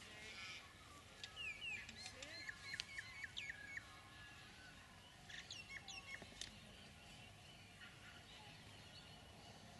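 Birds calling: a run of quick chirps and gliding whistles about a second in, and a shorter run around five seconds in, over a faint outdoor hush.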